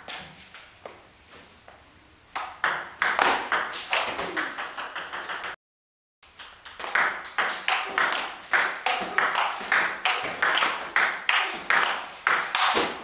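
Table tennis rally: the ball clicking back and forth off the bats and the table, about three hits a second. The hits start about two seconds in, and all sound cuts out for a moment about six seconds in.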